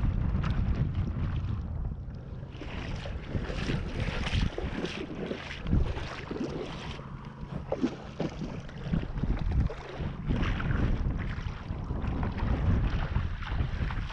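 Wind buffeting the microphone by open water, with irregular short knocks and a low steady hum in the middle.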